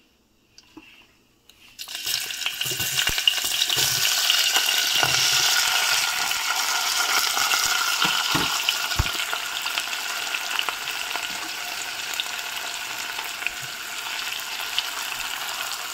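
Cubed potatoes and sliced onion frying in hot oil with cumin seeds in a stainless steel pressure cooker: a loud sizzle that starts suddenly about two seconds in and slowly eases, with a few dull knocks.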